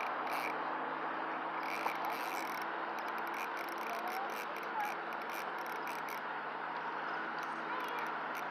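Fishing reel being cranked to bring in a hooked fish: a steady mechanical whir with light irregular clicking.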